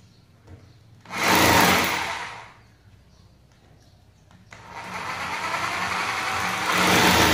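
Electric drill boring into a masonry wall: a short run of about a second and a half, a pause, then a longer run that builds and is at its loudest near the end as the bit bites in.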